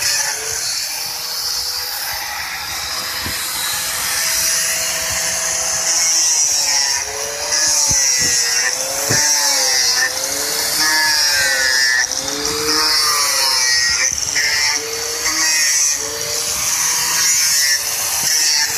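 Electric angle grinder with a sanding disc running steadily as it sands a red cedar carving, with a constant high hiss. A singing voice with a wavering pitch sounds over it.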